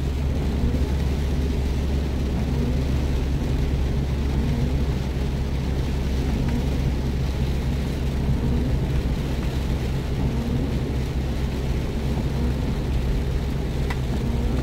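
Steady low rumble of a Jeep driving on a wet road, engine and road noise heard from inside the cabin.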